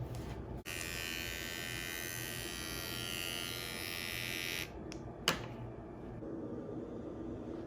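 A small electric motor tool runs with a steady buzz for about four seconds and then stops; a single sharp click follows about half a second later.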